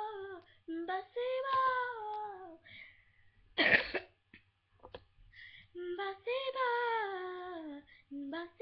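A young girl singing, her held notes sliding down in pitch, in two phrases with a single loud cough between them about three and a half seconds in; another phrase begins near the end.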